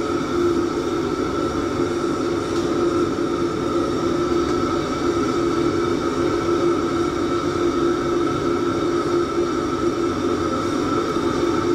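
Steady hum of a kitchen fan, holding a few even tones over a whooshing noise, with no change throughout.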